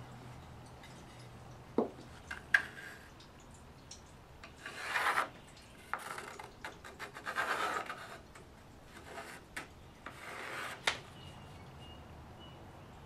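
Pencil scratching along plywood in three passes as lines are traced around the rack and a template, with a couple of light wood-on-wood knocks about two seconds in.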